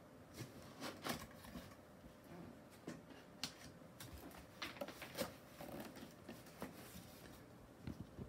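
Cardboard box being opened and handled: faint, irregular scraping and rustling of cardboard flaps and packaging, broken by a few sharper light taps.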